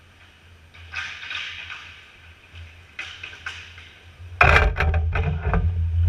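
Hockey skates scraping on the ice, then from about four and a half seconds in a loud clatter of sharp knocks from sticks, skates and puck as play reaches the net, with a low rumble underneath.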